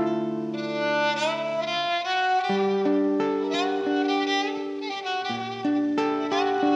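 Instrumental song introduction: a violin plays a gliding melody over held chords from an acoustic guitar, with the chord changing about every two and a half seconds.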